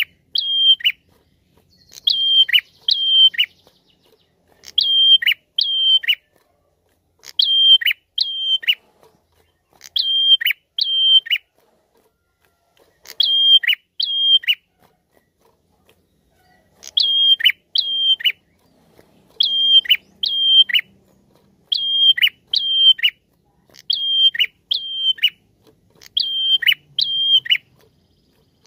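A caged prenjak, a small rufous-capped songbird, calling in short phrases of two or three sharp notes, each note a high tone that drops off steeply. The phrases repeat about every two seconds, with one longer pause about halfway through. This is the female's call to males, used as a lure call.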